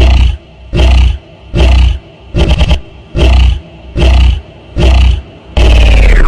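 A loud animal call, repeated in short bursts about every 0.8 s; near the end a longer call falls in pitch.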